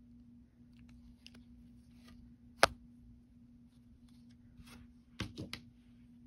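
Small handling sounds of loom knitting with a yarn needle: faint rustles and ticks, one sharp click about two and a half seconds in, and a quick run of three or four clicks about five seconds in, over a steady low hum.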